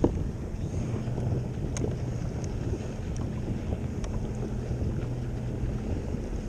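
Wind buffeting the microphone on a kayak at sea, over a steady low hum that drops out near the end. There is a sharp knock right at the start and a few faint clicks.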